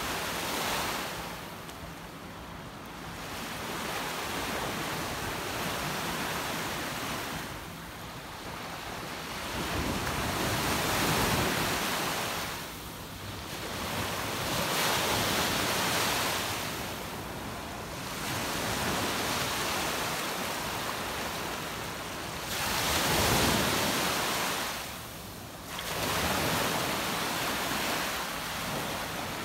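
Small sea waves breaking and washing up a sandy shore, the surf swelling and easing every few seconds.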